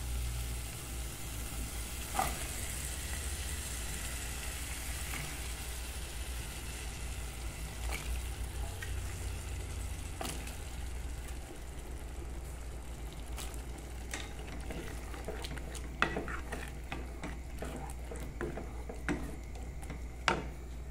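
Steady sizzling of cooked-down seasoning in a metal pot as cooked white beans are added and stirred in with a wooden spoon, with a few sharp knocks of the spoon against the pot.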